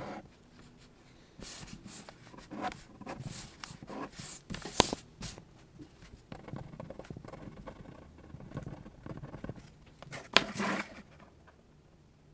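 Fine-tip Sakura Micron pen scratching in quick, irregular strokes on Bristol board paper, with a couple of sharp taps of the pen on the paper. The strokes thin out and stop near the end.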